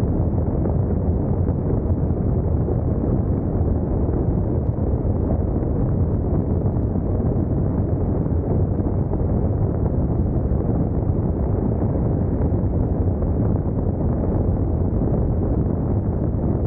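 Steady wind rush buffeting the microphone while riding a Honda NC750X DCT motorcycle at road speed, with the bike's engine and tyre noise blended underneath.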